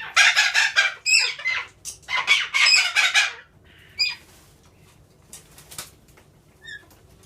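Pet parrots screeching in two loud, harsh, rapidly pulsing bursts of about a second and a half each, followed by a few short faint chirps.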